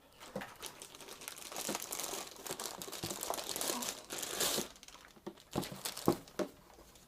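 Packaging crinkling and rustling as it is handled and pulled away for about four and a half seconds, then a few light knocks and clicks.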